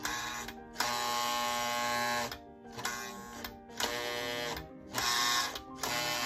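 Postwar Lionel 600 MKT switcher's electric motor buzzing under track power in about six bursts, switched on and off with short gaps between them. This is the engine's stubborn start: the motor buzzes as it tries to engage but is reluctant to turn.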